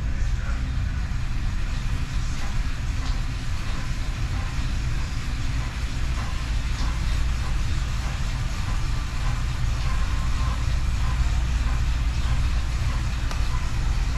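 Bicycle on an indoor trainer being pedaled steadily at about 99 rpm, giving a constant low rumble.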